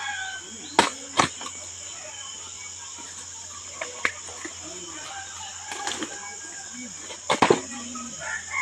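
Blade chopping into a felled palm trunk to cut out the palm heart: a few sharp chops about a second in, one at about four seconds and a quick pair near the end, over a steady high hiss.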